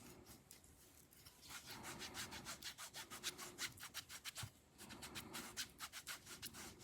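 Dish soap being rubbed by hand into a wet G10 knife handle scale, in quick back-and-forth scrubbing strokes about four a second, faint, with a short pause past the middle.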